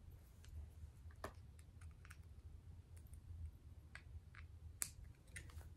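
Faint, scattered clicks of small plastic Lego minifigure pieces being handled, about half a dozen, the sharpest one a little before the end, over a low steady hum.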